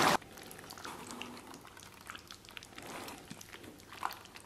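Thick tomato beef brisket stew simmering in a pot, bubbling faintly with scattered small pops. There is a brief louder click about four seconds in.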